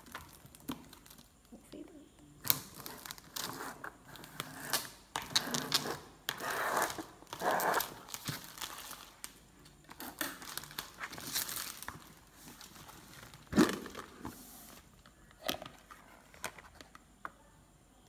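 Clear plastic film being cut and peeled off a plastic salad spinner, crinkling and tearing in irregular spurts for most of the time. A single sharp knock comes near the end.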